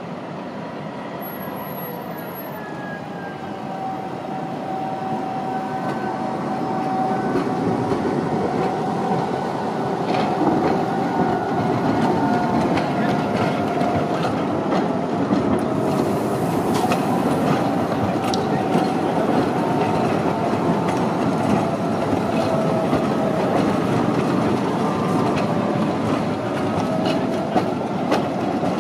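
Socimi Eurotram approaching and passing close, getting louder over the first ten seconds. The wheels click over the curved junction's pointwork and crossings, with a thin wavering whine throughout.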